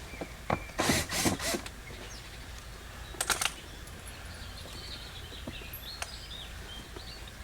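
Two short bursts of scraping, rattling tool handling from hand work on a car door panel, one about a second in and a shorter one about three seconds in, with faint bird chirps in the background.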